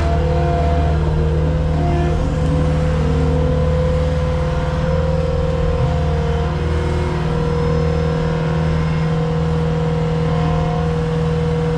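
Skid steer engine running steadily at working throttle, a continuous drone with small shifts in pitch.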